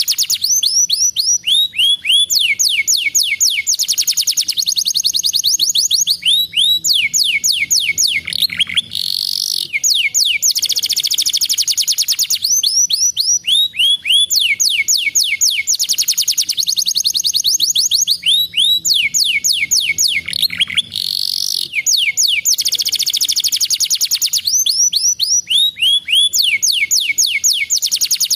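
Domestic canary singing a long song of fast trills, rolls of rapid repeated notes running one into the next. A drawn-out sweeping note comes about nine seconds in and again about twenty-one seconds in, as the same song pattern recurs about every twelve seconds.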